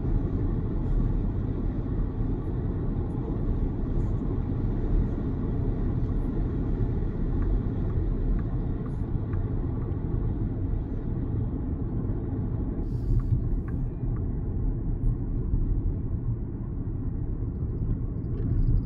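Road noise inside the cabin of an XPeng G6 electric SUV at highway speed: a steady low rumble of tyres and wind, with no engine note. A brief knock about two-thirds of the way through.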